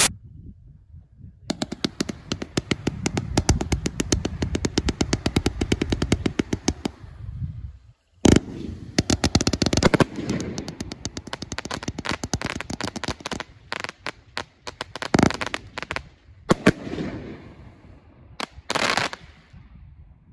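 Winda Chroma Chameleon Premium, a 99-shot 500-gram zipper cake, firing: a fast, even run of shots launching and bursting, a short break about eight seconds in, then a loud bang starting a second long run of shots with several louder reports near the end.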